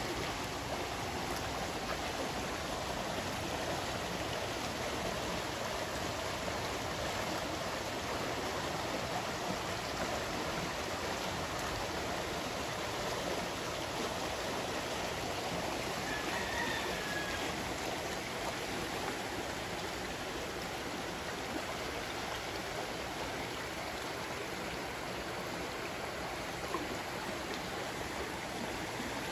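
Spring water flowing, a steady rushing noise that does not let up.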